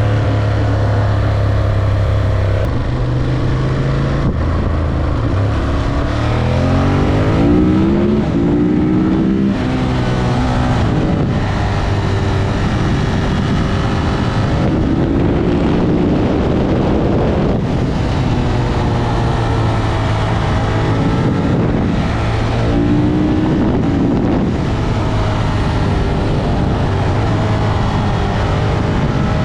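Ducati Monster 1200 S's L-twin engine on the move, climbing in pitch through the gears several times, with a quick drop at each shift, under steady wind and road rush.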